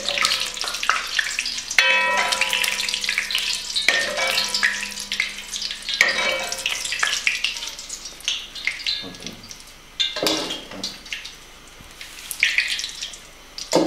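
Hot oil or sauce sizzling and crackling in a metal pot while a metal ladle stirs it, with a few ringing clinks of the ladle against the pot. The sizzling gets quieter in the last few seconds.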